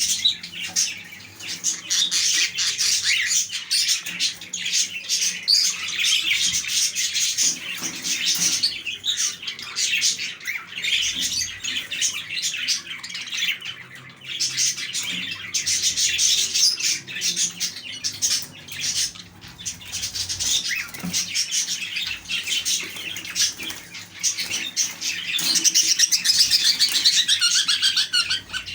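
A flock of king size (English) budgerigars chirping and chattering continuously, many birds calling over one another.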